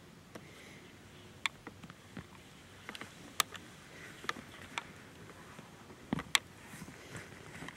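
Irregular sharp snaps and ticks of twigs and branches as a western lowland gorilla climbs and pulls at a leafy tree, the loudest cracks about a second and a half in, midway, and a close pair near the end.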